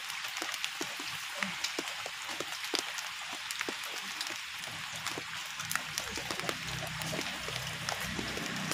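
Light rain pattering, with many small drops ticking on the pond water and nearby surfaces. A low steady hum comes in about six seconds in.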